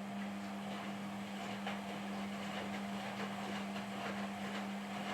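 Indesit WISN82 washing machine running with a steady hum at one pitch and faint rattling clicks.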